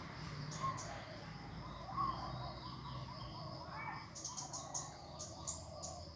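Birds calling as they squabble: short scattered chirps, then about four seconds in a rapid run of sharp, high ticking notes.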